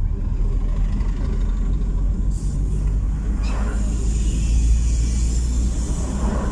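Road and engine noise of a car driving, heard from inside the cabin: a steady low rumble, with a rushing hiss rising about three and a half seconds in as the car passes a flatbed truck.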